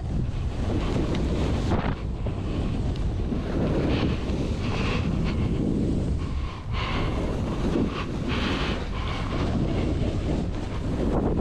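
Wind buffeting the microphone while a Jones Hovercraft splitboard rides down snow, the board's edge hissing and scraping through the snow in several turns.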